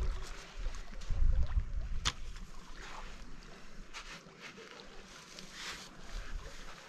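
Folding camp chair being pulled from its stuff sack and set up: fabric rustling and sharp clicks as its poles snap into place, the loudest about two seconds in. Wind buffets the microphone about a second in, and small waves lap at the shore.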